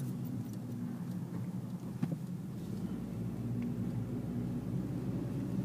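Steady low rumble of a car's engine and tyres heard from inside the moving car's cabin, with a single click about two seconds in.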